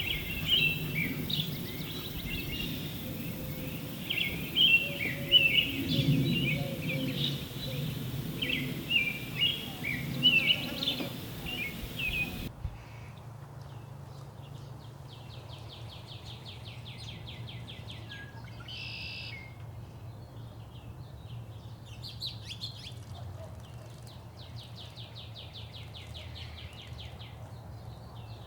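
Back-yard birdsong: for the first twelve seconds or so, a busy tangle of chirps and twittering notes from several birds. After an abrupt change, one bird gives a rapid, even trill lasting about three seconds, a short call, and then a second similar trill, over a steady low hum.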